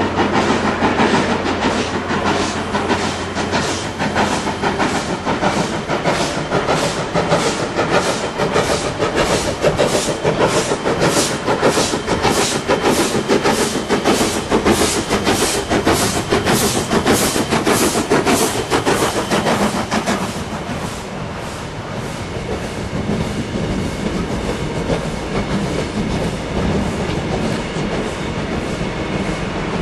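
Baldwin-built AC16 class 2-8-2 steam locomotive working past, its exhaust beating in an even rhythm of about two to three beats a second. About twenty seconds in the beats fade and the passing carriages' wheels click over the rail joints.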